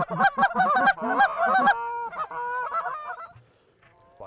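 Handheld goose call blown in a rapid string of loud, short honks and clucks, then a few fainter held notes, trailing off about three seconds in. It is a caller working a circling flock of geese to bring it into the decoys.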